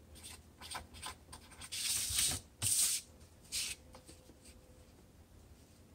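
Felt-tip marker writing on a paper target: a handful of short scratchy strokes, the longest and loudest about two to three and a half seconds in.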